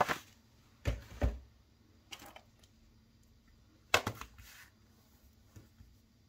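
Handling noises on a wooden desk as a wooden pen tray is moved aside and a notepad and fountain pen are laid down: a few scattered knocks and thumps. The loudest are two dull thumps about a second in and a sharp knock about four seconds in.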